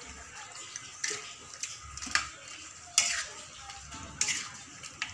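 Metal spatula scraping and clanking against a metal wok while stirring a chicken stew: a handful of separate strokes, the sharpest about three seconds in. A faint frying sizzle runs underneath.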